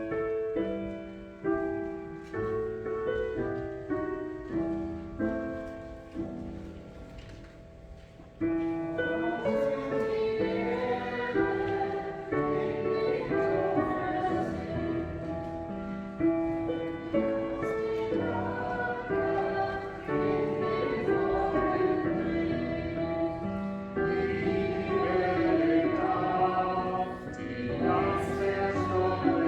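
An instrumental introduction of sustained notes, then a choir begins singing with the accompaniment about eight seconds in, fuller and louder from there on.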